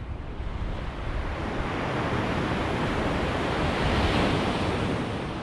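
Sea wave breaking and washing up the shore, the rush of water swelling from about a second and a half in, loudest around four seconds, then dying away.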